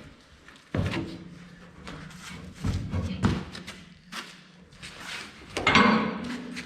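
Hardware of a 2-inch ratchet strap with a flat hook knocking and clanking against the trailer as the strap is laid out and hooked on. There are several separate knocks, and the loudest one near the end rings briefly.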